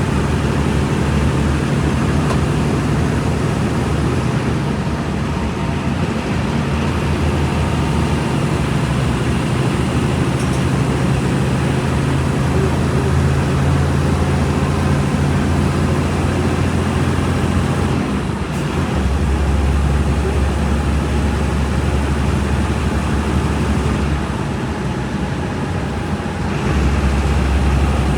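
Volkswagen Volksbus 17.230 EOD bus engine running while under way, its low hum stepping up and down in pitch several times as engine speed changes, with road noise.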